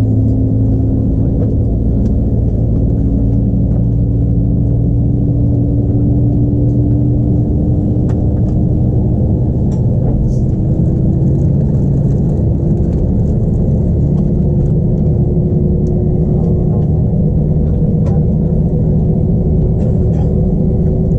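Airbus A321 cabin hum heard from inside, near the wing: a steady, loud drone from the jet's IAE V2500 engines at taxi power. Several of its tones climb slowly in pitch as the engines run.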